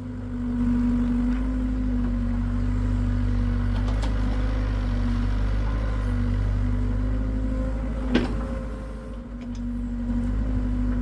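Hitachi excavator's diesel engine running steadily under load, with a steady drone whose pitch eases off and comes back a few times, and one sharp knock about eight seconds in.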